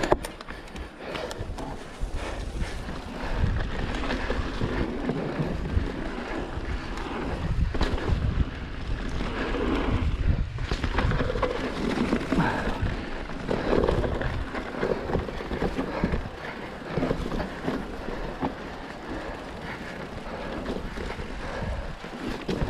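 Mountain bike ridden along a dirt trail: wind rushing over the microphone with a steady low rumble, swelling and easing, and many irregular knocks and rattles from the bike over rough ground.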